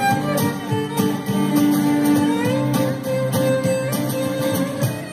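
Irish folk band playing an instrumental passage: acoustic guitar strumming steadily while a fiddle plays the tune in long held notes, amplified through the stage PA.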